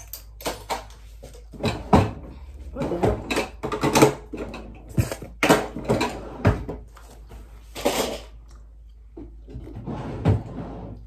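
A string of knocks, bumps and rustles from things being handled and moved about, the loudest about two, four and eight seconds in.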